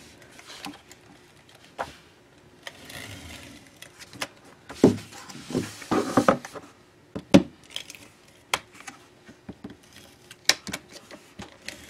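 A Fast Fuse adhesive applicator run along the edges of paper, with a dry rasping stroke about three seconds in, among irregular clicks and knocks of the applicator and the paper being handled on a desk.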